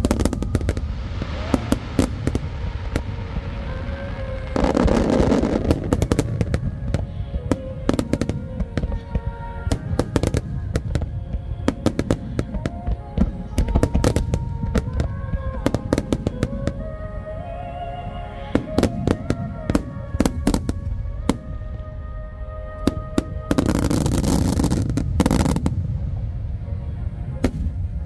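Dense barrage of aerial firework shells bursting, dozens of sharp booms in quick succession, over music from loudspeakers. Two stretches of louder rushing noise come about five seconds in and again near the end.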